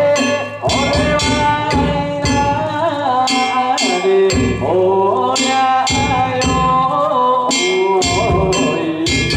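Danjiri festival music: drum and gong beats struck in a rhythm under a held, wavering pitched melody line.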